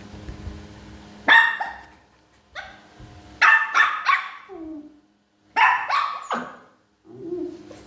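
Small Shih Tzu–type dogs barking, high yappy barks in several short bouts, with a brief lower whine between them.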